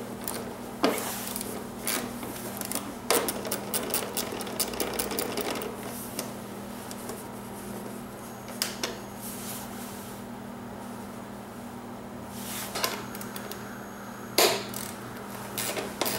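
Scattered metallic clicks and taps of a Torx key working a screw in a BMW R1200GS's plastic bodywork panel, with a quick run of ticks a few seconds in and more clicks near the end. A steady low hum sits underneath.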